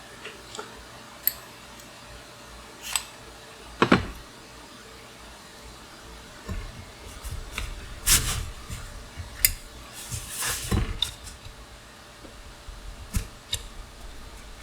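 Steel bicycle parts and hand tools clinking and knocking as they are handled during disassembly: scattered sharp metallic knocks, with a busier stretch of handling noise in the middle.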